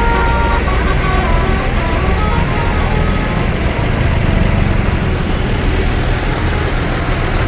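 Bus engine running with a loud, steady low rumble. In the first second and a half a multi-tone 'telolet' bus horn plays its last few short notes at different pitches.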